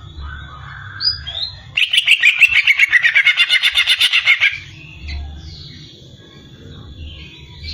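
Cucak ijo (green leafbird) singing: a few short chirps, then a loud, fast run of rapid notes, about eight a second, lasting nearly three seconds, followed by softer chirps.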